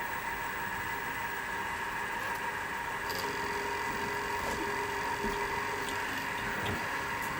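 LMS 3900 HiTorque mini mill running at about 1300 RPM, its motor and power feed giving a steady whine of several tones, as the end mill takes a light cut along the edge of a piece of acrylic. A lower tone joins about three seconds in.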